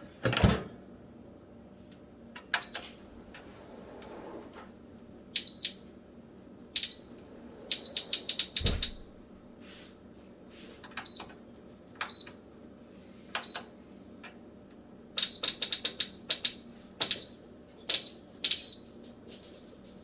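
Short high beeps from the Kalorik MAXX air fryer oven's digital control panel, about a dozen, each with a click as a button is pressed, some spaced out and some in quick runs. There are two dull thumps, one at the start and one about nine seconds in.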